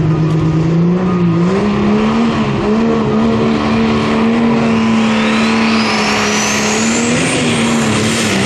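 Diesel pulling truck's engine running at full throttle as it pulls a sled, its pitch climbing about a second in and then holding steady. A high whine rises steadily in pitch through the second half.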